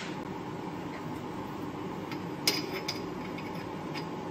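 Light metallic taps and clinks of metal pipe-bend pieces being handled and fitted against a fabricated turbo manifold, the sharpest clink about two and a half seconds in with a short ring, over a steady background hum.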